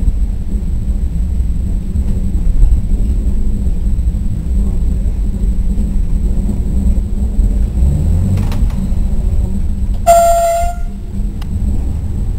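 Train running along the track with a steady low rumble, heard from aboard, and one short horn toot about ten seconds in.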